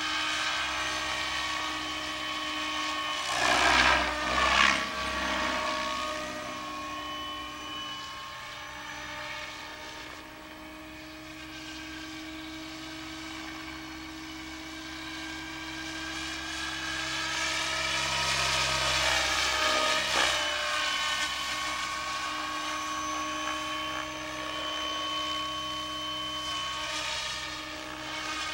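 Radio-controlled Protos Max V2 electric helicopter in flight: the motor and gears whine steadily under the swish of the rotor blades. About four seconds in it swells into two loud rushes of rotor noise in quick succession, and it grows louder again around eighteen to twenty seconds.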